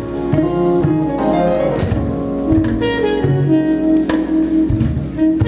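Instrumental music, a melody of held and changing notes over a regular beat.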